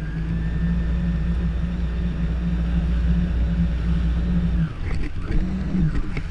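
Jet ski engine running at a steady speed, then easing off about four and a half seconds in, with a short rise in revs near the end.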